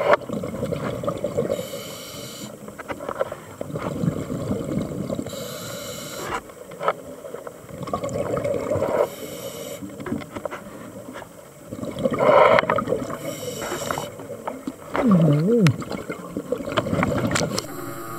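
Scuba diver breathing through a regulator underwater. Each inhale is a short hiss and each exhale a longer rush of bubbles, the cycle repeating about every three to four seconds. A brief wavering tone comes about fifteen seconds in.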